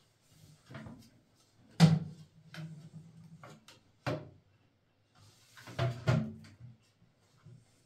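Plastic toilet seat and lid being handled and knocked against the ceramic bowl while the slipped-out hinge pin is pressed back into its mount: several separate clunks and rattles, the loudest about two seconds in and a cluster near six seconds.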